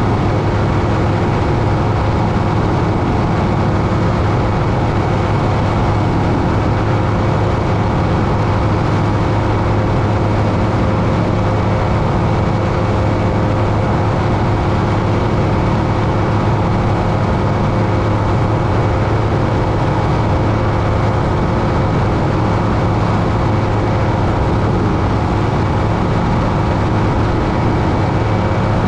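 Aerolite 103 ultralight's two-stroke engine and propeller running steadily at cruise power in flight, a constant drone with no change in pitch.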